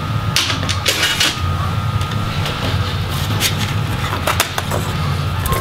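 Scattered light clicks and scrapes of hands handling a laptop's bare palm rest and keyboard assembly, over a steady low room hum.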